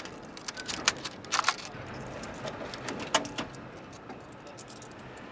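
Coins clinking as they are picked out of a cash register's coin drawer and handed over as change: a handful of sharp metallic clinks, the loudest about one, one and a half and three seconds in.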